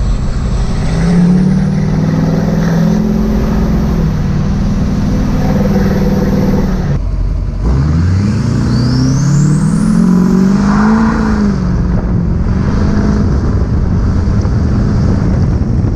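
LBZ Duramax 6.6-litre V8 turbodiesel pickup under way, its engine note rising and falling as it accelerates. After a brief break about seven seconds in, it pulls up again from low revs, and a thin high whistle rises with it as the turbo spools.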